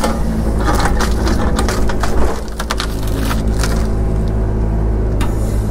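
Excavator engine running steadily while its bucket handles big tree stumps, with wood and roots cracking and knocking. The loudest knock comes about two seconds in.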